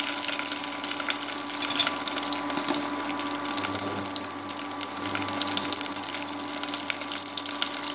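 Whole spices (bay leaves, star anise, cinnamon, cloves) sizzling steadily in hot oil in a steel pot: the tempering stage of biryani, as the spices fry before the onions go in. A steady electric hum and whine runs underneath, from the induction cooktop.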